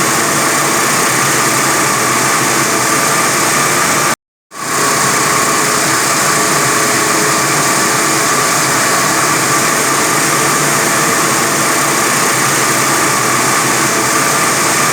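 A 45 kW diamond wire saw running steadily through reinforced concrete, a loud even machine noise with a constant whine. It cuts out for a moment about four seconds in, then comes back.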